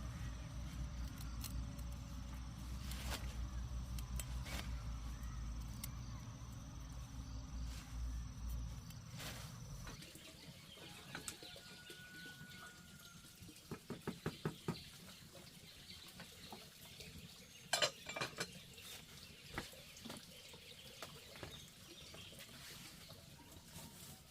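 Steady low rumble that cuts off about ten seconds in, followed by a quieter stretch of scattered clinks and knocks of kitchen work, with a quick run of knocks near the middle and a sharp clink a little later.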